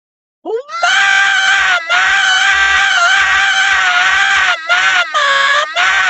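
A loud, high-pitched scream: it shoots up in pitch at the start and holds for about four seconds with a slight waver, then breaks into three or four shorter screams near the end.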